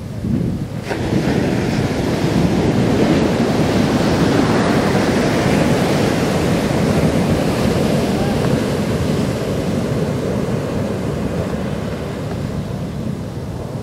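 Heavy shorebreak surf crashing and washing in. It swells to full strength about a second in and slowly eases off, with wind buffeting the microphone.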